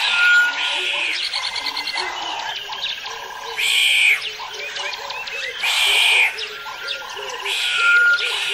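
Rainforest soundscape of frogs and birds calling together: many short repeated calls overlap, with a loud buzzy call coming back about every two seconds.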